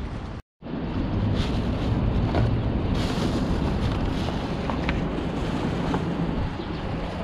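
Wind buffeting an outdoor microphone, a steady low rumble, with a few scattered light clicks and crunches. The sound drops out for a moment about half a second in.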